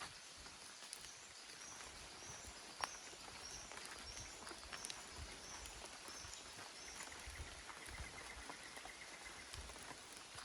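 Footsteps thudding softly along a forest walking track while birds call: a run of short high notes repeated over and over, then a rapid ticking trill about seven seconds in. Underneath is a steady forest hiss with scattered sharp ticks.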